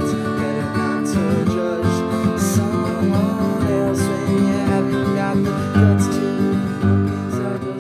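Instrumental passage of a song: acoustic guitar strummed in a steady rhythm.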